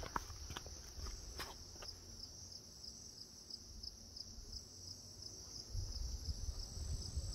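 Insects calling in a steady high drone that pulses about three times a second, over a low wind rumble on the microphone. A few faint clicks in the first two seconds.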